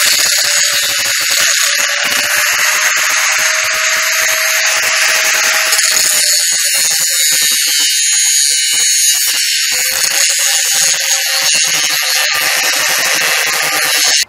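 Handheld angle grinder running under load, its disc grinding steel tubing at a welded joint of a mini bike frame. A steady high motor whine sits under hissing grinding noise, and the pitch sags slightly now and then as the disc is pressed in.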